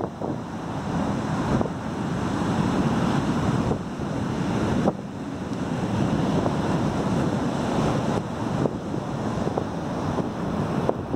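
Wind buffeting the microphone over the steady rush of heavy surf breaking on the beach.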